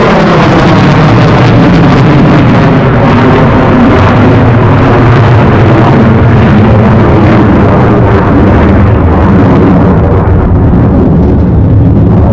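An F-35 Lightning II's single F135 turbofan jet engine, very loud, passing with its pitch falling over the first couple of seconds, then a sustained jet engine noise.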